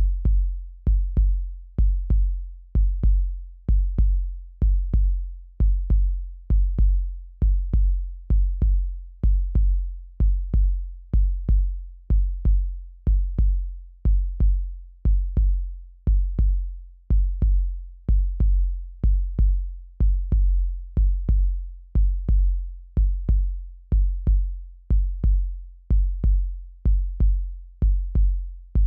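Recorded heartbeat sound: a low double thump, lub-dub, repeating steadily about once a second.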